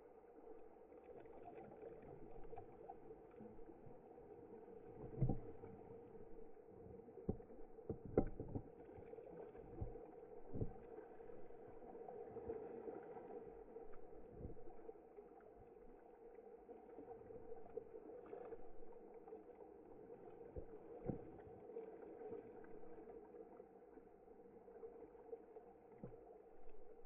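Pool water lapping and sloshing against a camera sitting at the water's surface, with a faint steady hum underneath. Several short thumps come as ripples hit the camera, the strongest about five and eight seconds in.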